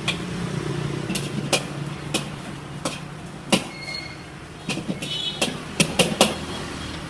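Irregular sharp knocks and clicks, about a dozen, some in quick pairs near the end, over a steady low hum.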